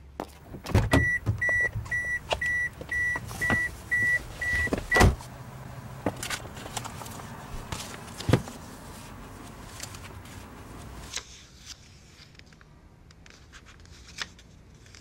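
A car door opens with a click and the car's door-open warning chime beeps steadily, about two beeps a second. About five seconds in the door shuts with a thud and the beeping stops, followed by faint rustling of papers being handled.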